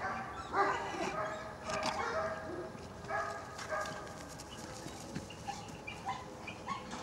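A dog barking and yelping in a run of short, high calls, louder over the first four seconds and then fainter and briefer toward the end.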